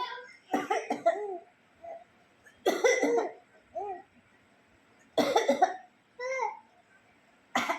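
An elderly woman coughing in four short fits, about two and a half seconds apart. A small child answers each with short high-pitched laughs.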